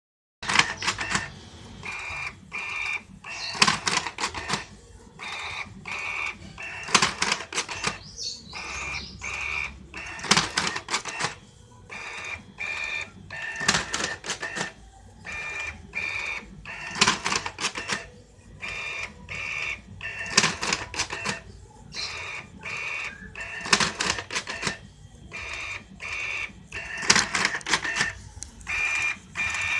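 Simple numbering machine running, stamping in a repeating cycle: a loud cluster of clacks about every three seconds, with lighter ticking and short high squeaks between strokes.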